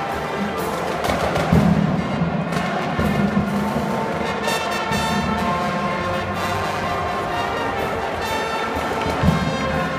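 A marching drum corps playing, with held brass notes over drums. A louder drum hit lands near the end.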